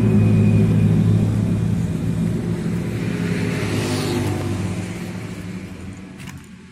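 A motor vehicle engine running steadily with a low, even hum. A swell of hiss rises and falls about four seconds in, and the sound fades out near the end.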